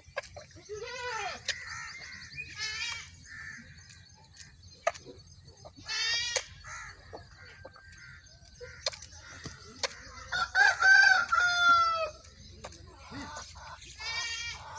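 Farmyard poultry: hens clucking and a rooster crowing. The loudest call is one long crow about ten seconds in that drops in pitch at its end. A goat bleats briefly a couple of times in between.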